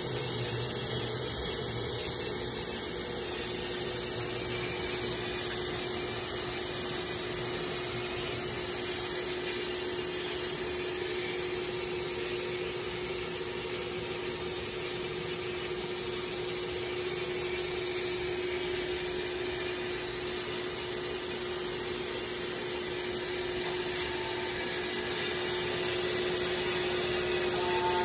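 2011 Trident TR 45E CNC drilling and tapping center running quietly, a steady hum and whir with one constant tone. It gets slightly louder near the end, where a few short beeps sound.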